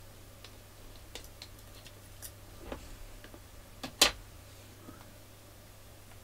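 Light plastic clicks and taps as cassette shell parts and reel hubs are handled on a cutting mat, with a sharper clack about four seconds in. A faint steady low hum runs underneath.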